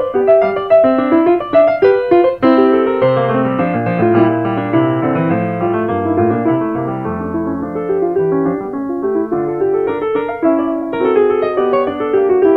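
Piano music: a melody played over chords, with lower notes coming in about three seconds in.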